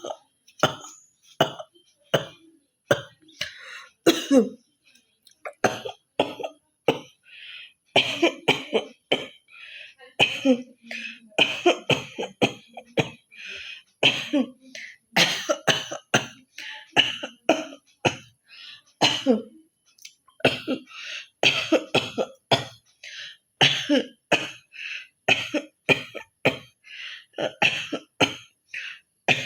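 A woman coughing and hawking over and over: a rapid string of short coughs and throat-clearing hawks, about two a second, broken by a few brief pauses.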